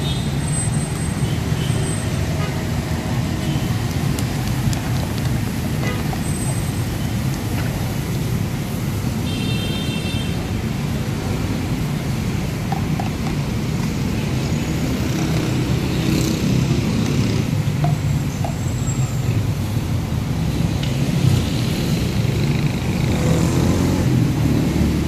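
Steady low rumble of road traffic and running engines, with faint voices in the background. A brief high tone sounds about ten seconds in.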